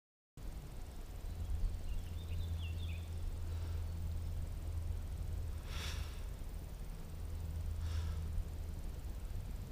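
Outdoor ambience with wind rumbling on the microphone, faint bird chirps a couple of seconds in, and two short hissy sounds about two seconds apart near the middle and end.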